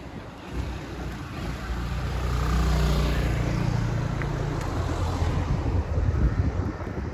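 A car driving along the street past the microphone, engine and tyre noise swelling from about a second in and easing off toward the end.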